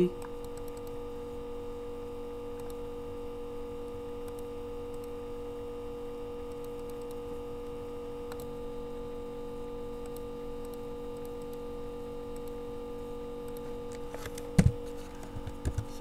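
Steady electrical hum from the recording setup, with a few sharp clicks near the end as the equation is typed in.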